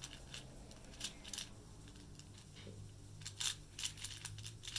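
4x4 Rubik's cube being turned: plastic layers clicking and clacking in short bursts of quick turns.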